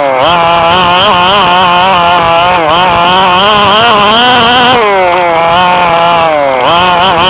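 Radio-controlled car's small engine running hard, its pitch rising and falling again and again as the throttle is worked, with deeper drops about five and six and a half seconds in.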